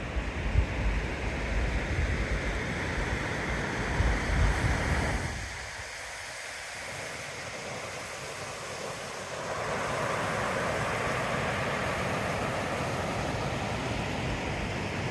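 Wind on the microphone, rumbling in gusts for the first five seconds. It changes abruptly to a quieter bed, then to a steadier rushing hiss from about halfway through.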